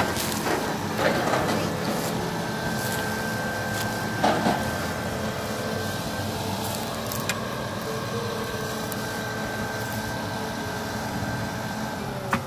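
XCMG concrete pump truck's diesel engine running at a steady idle, with a steady high whine over the drone and a few sharp knocks near the start and about four seconds in.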